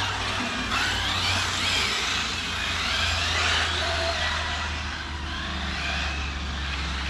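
Brushless electric RC cars driving, their motors whining and sliding up and down in pitch with the throttle over a steady hiss.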